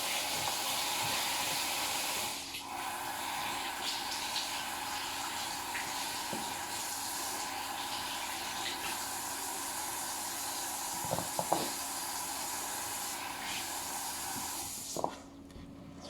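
Tap water running steadily into a sink while something is rinsed under it, with a brief dip about two and a half seconds in and a few light knocks near the end; the water stops about a second before the end.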